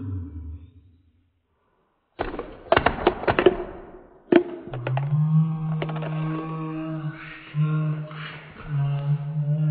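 A quick clatter of small hard objects, a Rubik's cube and plastic cup among them, knocked over by a thrown tennis ball, with a last sharp knock a moment later. After it comes a long, low, drawn-out voice holding notes.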